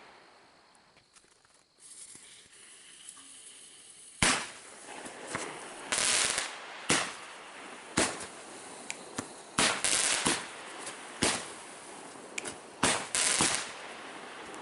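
Firecrackers going off: an irregular run of sharp bangs and short crackling bursts, starting about four seconds in after a quiet stretch.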